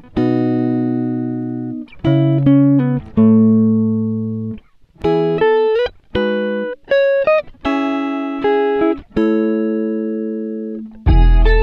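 Instrumental music: a plucked guitar plays ringing chords and short melodic phrases, with brief pauses between them. Near the end a low bass enters and the sound fills out.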